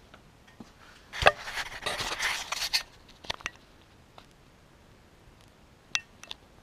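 Rustling and scraping for about two seconds, opening with a sharp click, then a few isolated clicks; no engine running.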